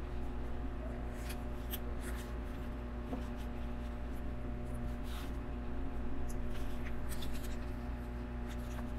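Plastic LEGO pieces being handled and fitted together: scattered small clicks and scratchy rustles, over a steady low electrical hum.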